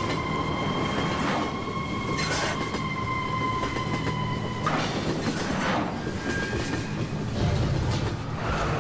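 Subway train running through a tunnel: a steady rumble with a high whine that stops about halfway through.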